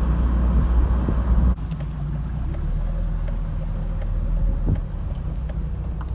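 Peugeot 306 XSi being driven: a steady low engine and road rumble, which drops in level about one and a half seconds in.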